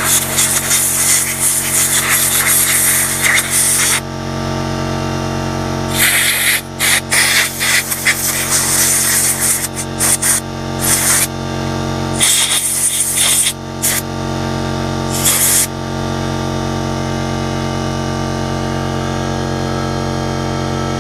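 Short, loud hissing blasts from an air line and carb cleaner spray being used to clean a small-engine carburettor, several times, over a steady mechanical hum.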